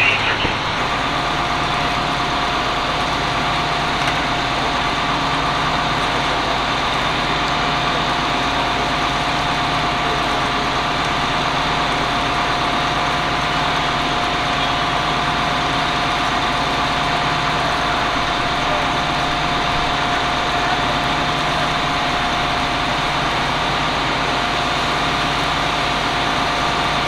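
Engine running at a constant speed: an even drone with a steady whine over it that never changes.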